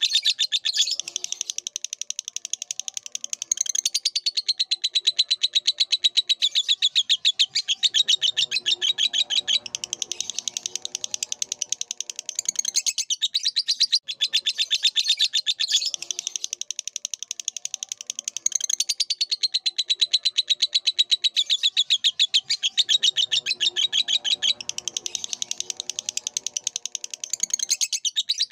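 Lovebird singing: a long, unbroken run of rapid, high-pitched chattering chirps. The same passage repeats about halfway through, as a looped recording.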